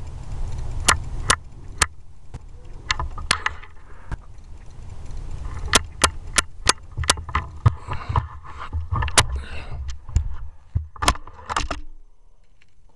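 Irregular sharp clicks and taps from an air rifle and its scope being handled, over a steady low rumble.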